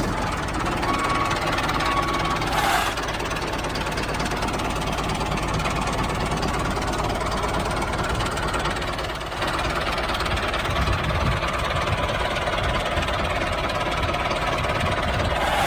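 Tractor engine running steadily with a fast, even diesel-style knock.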